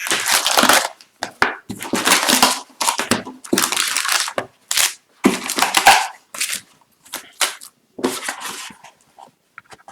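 Plastic wrapping crinkling and tearing by hand in a run of short, irregular bursts as a sealed box of hockey cards and its packs are opened.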